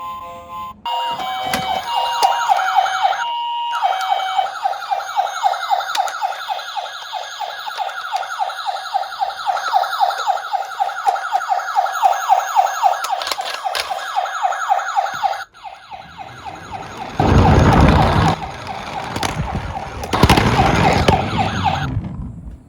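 Toy emergency vehicles' electronic sirens: a stepping two-tone siren, then a fast warbling siren for about ten seconds that cuts off abruptly. After that comes a rumbling clatter of the toy cars rolling down the slope, loudest twice near the end.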